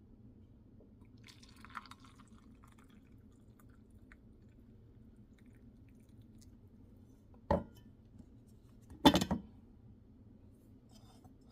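Coffee trickling faintly for the first few seconds, then two sharp clacks of a cup or container being handled, the second about a second and a half later and louder.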